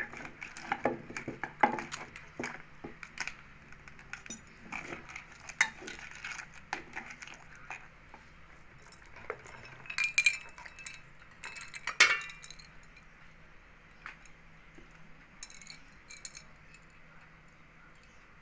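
Small crab shells cracking and snapping as they are broken apart by hand over a wooden mortar, with a metal spoon clinking in the bowl. Short clicks come in quick succession at first, then louder clinks about ten and twelve seconds in, the second being the loudest.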